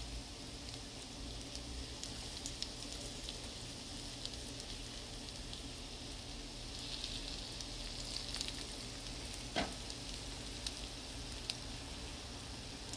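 Melted butter sizzling steadily in a hot frying pan around pancake batter and bacon, with scattered small crackles and one sharper click about ten seconds in.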